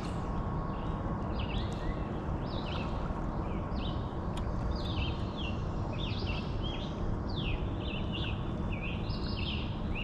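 Small birds chirping over and over in short, high notes that fall in pitch, over a steady low background rush.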